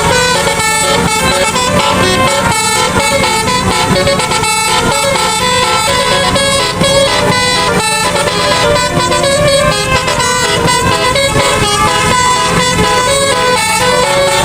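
Bus 'telolet' horn: a set of multi-tone air horns playing a stepping melody, loud and continuous, over a low rumble.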